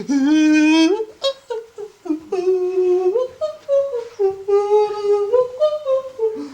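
A person humming a wordless tune, holding long notes that step up and down in pitch, with a short break about a second in.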